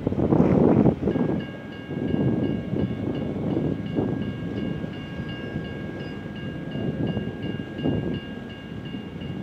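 Amtrak Southwest Chief passenger train passing, with a rumbling roll of wheels on track that is loudest in the first second. From about a second in, a high ringing tone pulses about three times a second over it.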